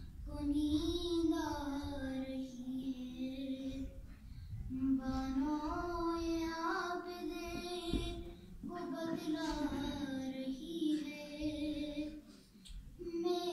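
A woman reciting a salam, an Urdu devotional elegy, in a solo singing voice: long, drawn-out, wavering phrases of about four seconds each, with short breaths between them and a new phrase starting near the end.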